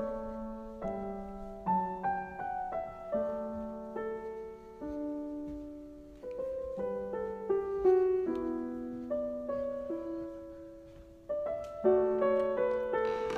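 Piano music: a melody of struck notes and chords, each note ringing and fading before the next.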